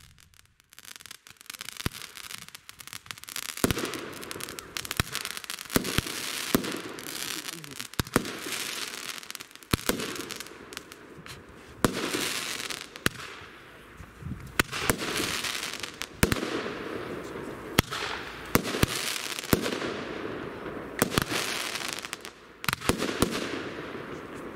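Pyroweb Fortuna 16-shot, 30 mm firework battery firing its shots in sequence, about one every one and a half seconds. Each shot is a sharp bang followed by a hissing rush that fades as the burst burns out.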